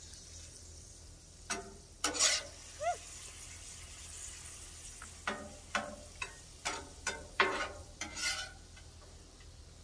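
Spatula scraping and clacking on a Blackstone flat-top griddle as shrimp are scooped off, a series of short sharp strokes, most of them between about five and eight and a half seconds in. Under it runs a steady sizzle of food frying on the hot griddle.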